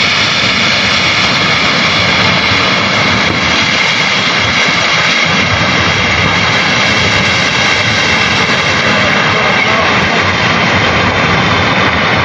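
Floodwater of the swollen Swat River rushing past, a loud steady torrent with no let-up.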